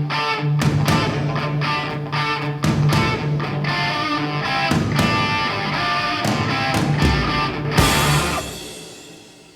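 Rock music with electric guitar and a steady beat, ending on one last loud hit about eight seconds in that rings and fades out.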